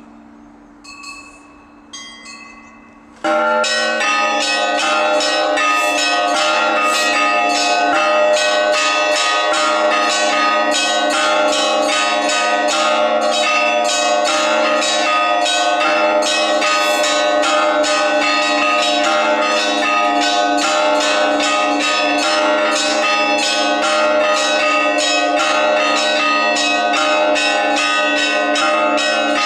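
Orthodox church bells: a few single strokes on small high bells, then about three seconds in the whole set breaks into a fast, loud peal of many bells struck together, which carries on steadily.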